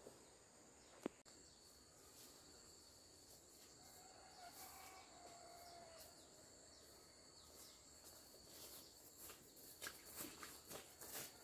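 Faint, quiet outdoor background of insects shrilling steadily on two high pitches, with one sharp click about a second in. Near the end, soft rustling footsteps through ferns and undergrowth.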